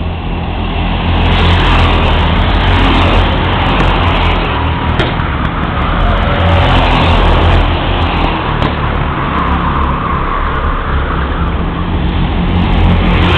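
Engines of a pack of rental go-karts racing past on the track, a loud continuous engine noise that swells about a second in and holds steady.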